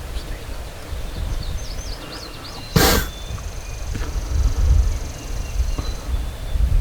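Wind buffeting the microphone with a steady low rumble, small bird chirps above it, and one brief loud noise burst about three seconds in.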